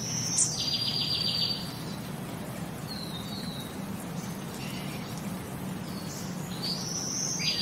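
Birds calling: sharp high whistles and a buzzy, rapidly pulsed trill near the start, a short falling note midway, and the trill again near the end, over a low steady hum.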